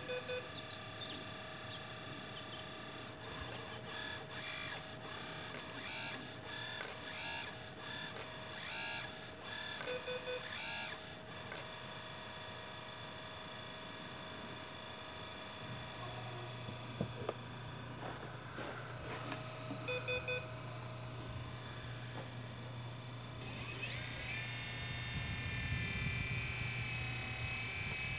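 Kabolite K350 1:14 radio-controlled hydraulic excavator running: a steady high-pitched whine from its electric hydraulic pump, changing in quick pulses in the first half as the controls are worked. Short beeps come about every ten seconds, and a low hum joins about halfway through.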